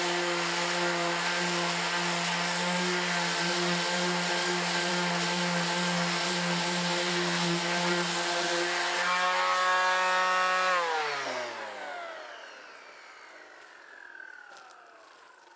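A handheld electric power tool's motor runs steadily at full speed with a hiss, then is switched off about eleven seconds in and winds down, its pitch falling as it stops.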